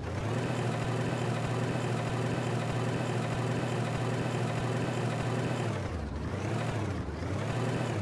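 Engine sound effect for a cartoon road roller, running steadily with a low hum. Near the end it gives way to a couple of rising-and-falling sweeps.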